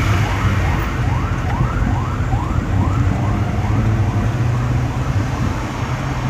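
Ambulance siren in a fast yelp, short rising sweeps about two a second, fading out near the end, over the steady low hum of vehicles on the road.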